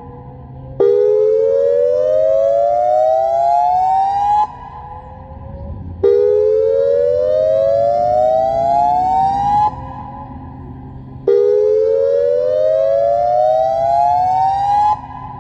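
Federal Signal Modulator 8032B outdoor warning siren sounding a custom whoop tone: three loud rising sweeps, each climbing in pitch for about three and a half seconds before cutting off sharply, with a pause of about a second and a half between them.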